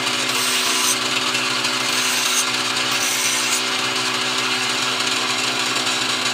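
Bench grinder running with a steady motor hum while a carabao horn slingshot frame is ground against its wheel. The grinding hiss turns sharper in three short spells in the first few seconds.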